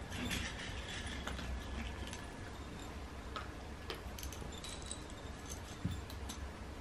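Cats crunching dry cat treats from small plates: faint, scattered clicks and ticks.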